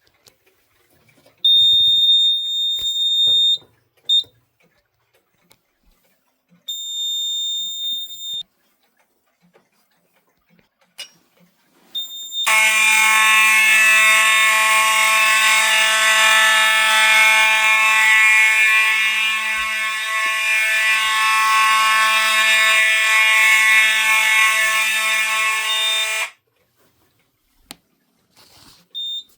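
Fire alarm devices being tested. A high-pitched steady tone sounds twice for about two seconds each, then a loud buzzing alarm horn runs for about fourteen seconds and cuts off suddenly.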